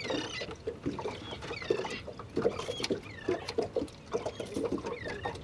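Small waves slapping and knocking irregularly against a boat's hull, with short high squeaks, each bending in pitch, every second or so.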